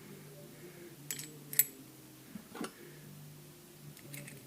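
A few separate sharp metallic clicks and clinks, the loudest about a second and a half in with a brief high ring, as small bicycle parts and tools are handled during reassembly, over a steady low hum.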